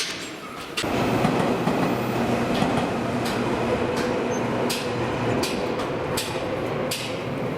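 A Seibu Railway electric train passing close by. A steady rumble sets in suddenly about a second in, and wheels clack over rail joints at a regular beat of a little more than one clack a second.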